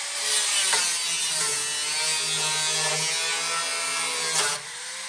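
A small handheld power tool cutting into a rusty steel body panel, running with a steady whine whose pitch sags and recovers as it bites.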